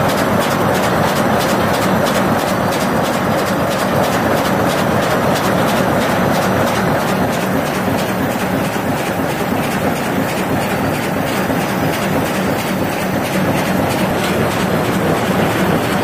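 Four-colour printer slotter die cutter running at speed as corrugated board sheets feed through its rollers: a steady, dense mechanical clatter with fine, rapid ticking.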